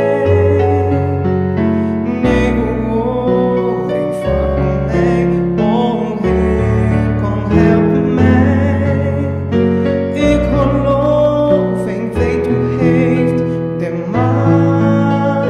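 Dutch worship song: a voice singing a slow melody over keyboard accompaniment, with sustained bass notes changing every second or two.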